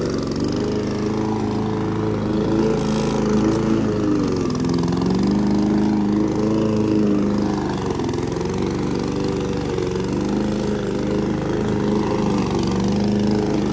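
Petrol lawn mower engine running steadily, its pitch dipping briefly three times as it takes load.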